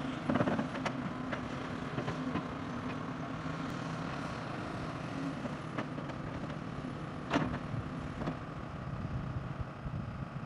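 Diesel engines of earthmoving machines running steadily, a Hidromek 300 LC H4 crawler excavator digging and a backhoe loader, with a few sharp clanks, the loudest about seven seconds in.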